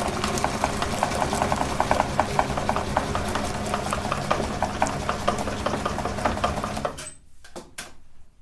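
Electric meat grinder running, its motor humming steadily under a dense crackle of ice cream being crushed through it. It stops suddenly about seven seconds in, leaving a few scattered clicks.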